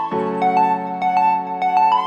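Background music: a keyboard melody of quick notes over held chords, the chord changing just after the start.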